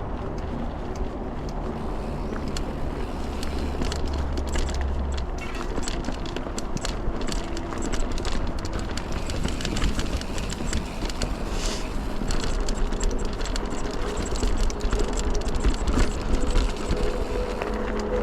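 Mountain bike ridden over rocky, rooty singletrack: a steady rumble of tyres on the trail with many sharp clicks and rattles as the bike jolts over bumps, growing busier in the second half.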